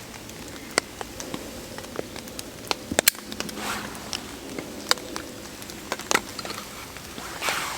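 Rain falling on a tarp shelter: a steady hiss with scattered, irregular sharp taps of drops striking the fabric.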